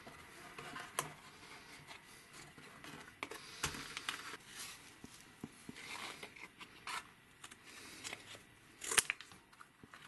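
Scissors cutting thin cardboard in short, separate snips, with the rustle of the cardboard pieces being handled between cuts; the loudest snap comes about nine seconds in.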